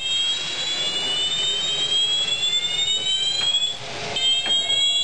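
Automatic dry-chemical fire extinguisher discharging into a burning test box: a loud hiss that starts abruptly, with high whistling tones that rise steadily, break off about four seconds in and start rising again.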